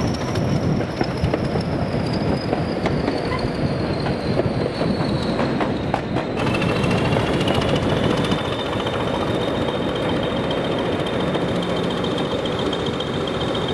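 Diesel locomotive running, with a high whine that falls slowly in pitch; about halfway through, a new, steadier whine takes over.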